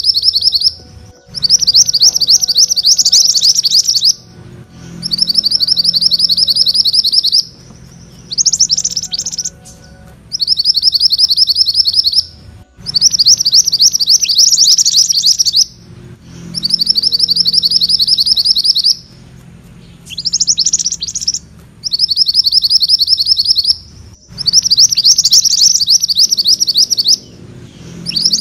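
Mantenan kuning songbird singing its rolling trill song: phrases of rapid, closely repeated high notes, most about two to three seconds long, repeated about ten times with short pauses between.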